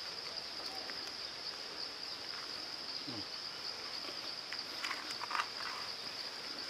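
Steady high-pitched drone of forest insects, with a few faint rustles of handling about five seconds in.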